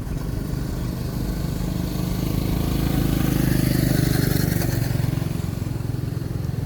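A motor vehicle passing on the road, its engine growing louder for a few seconds and then fading away.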